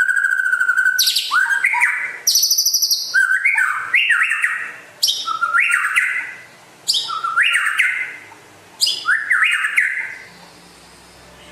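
White-rumped shama (murai batu) singing. A held whistle leads into harsh, high rattling notes, then the same rising phrase repeats four times about two seconds apart. The song stops shortly before the end.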